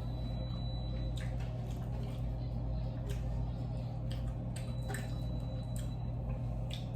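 Close-up chewing and wet mouth clicks from eating breaded chicken bites, scattered irregular clicks over a steady low hum.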